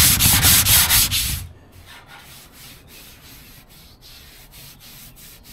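Sandpaper rubbed back and forth over fiberglass on a car body, in quick even strokes of about four a second. The strokes are loud for about the first second and a half, then lighter strokes continue.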